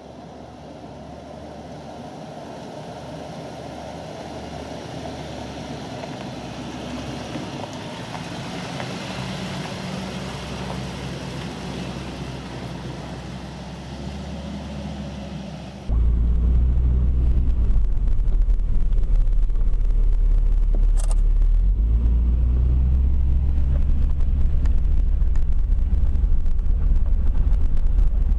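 Four-wheel-drive vehicles driving on a dirt track, engines and tyres growing steadily louder as they approach. About halfway through it cuts suddenly to a loud, steady low drone of engine and road noise inside a moving 4WD's cabin.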